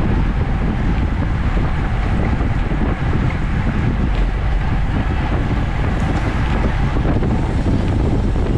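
Steady, loud wind rushing over a bike-mounted camera's microphone while riding at about 25 mph.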